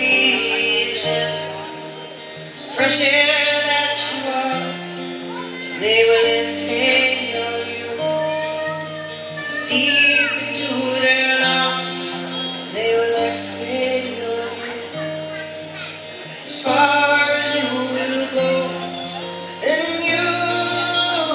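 Acoustic guitar played live with a man singing over it: sung phrases start every few seconds and rise and fall in pitch above held low guitar notes.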